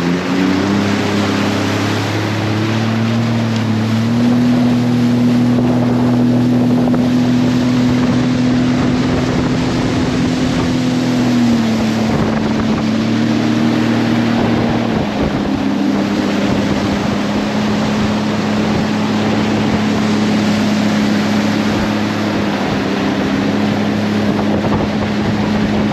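Sea-Doo RXT-X jet ski running under way, its engine note rising briefly at the start and then holding steady, dropping slightly in pitch twice, about 11 and 15 seconds in. Wind buffets the microphone throughout.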